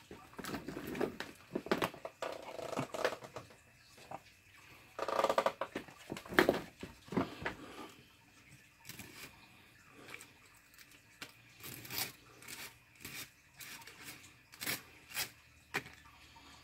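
Irregular rustling, clicks and knocks of objects being handled and set down on a wooden workbench, busier in the first half, then sparser sharp clicks.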